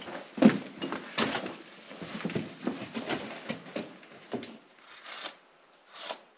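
Irregular crunching footsteps and knocks on the loose rock floor of a mine tunnel, with one louder knock about half a second in.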